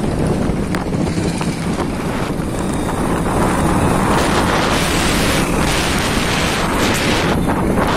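Wind buffeting the microphone on a moving vehicle, a steady rough rumble with road and vehicle noise under it, gustier and hissier in the second half.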